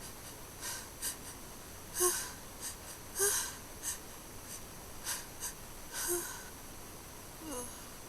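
A person sniffling and breathing hard in about ten short noisy bursts, the loudest about two and three seconds in, with a few small voiced catches and a short falling sigh near the end. It is the quieter sniffing between hard sneezes, over a steady hiss from a faulty microphone.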